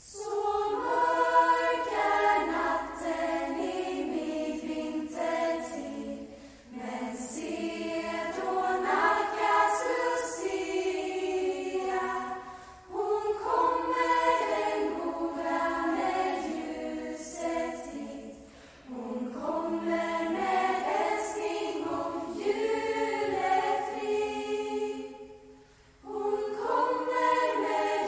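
Choir of young women's voices singing a traditional Swedish Lucia song in phrases of about six seconds, each followed by a short breath pause.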